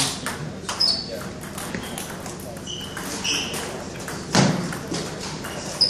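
Table tennis rally: the ball clicking off paddles and table again and again, with sneakers squeaking on the wooden floor and a louder thump about four seconds in.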